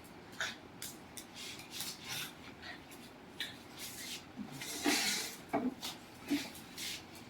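Small dogs scuffling at play: a string of short rustles, scrapes and taps, busiest about five seconds in.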